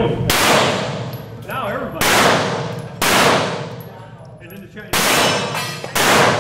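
Pistol shots fired one at a time, five in all, about a second to two seconds apart, each echoing off the concrete walls of an indoor range.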